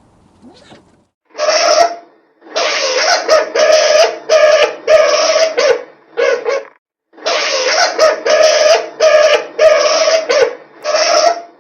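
A skunk giving a series of about fifteen short, loud calls, each about half a second long, in quick succession with brief gaps. The first call stands alone, and the rest come in close runs.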